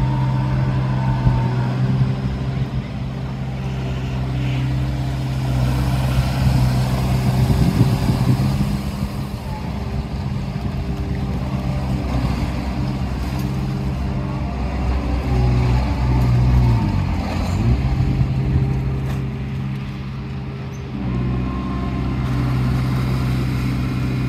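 Engine of a canal-cleaning workboat running steadily with an even hum as it works its hydraulic leaf rake. Its pitch dips briefly about two-thirds of the way through, and it grows louder again near the end as the boat pulls away.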